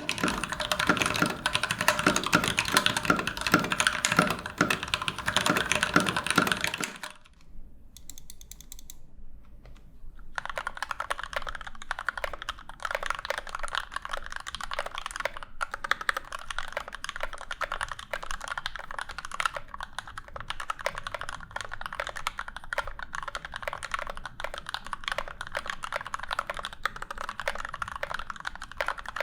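Fast typing on a NovelKeys NK65 Aluminum mechanical keyboard with C³ Tangerine V2 linear switches. The first seven seconds are on stock switches and are louder and deeper. After a pause of about three seconds, typing resumes quieter on the same switches, now lubed and filmed.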